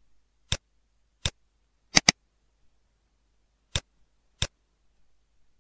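Computer mouse button clicking: two single clicks, a quick double click about two seconds in, then two more single clicks.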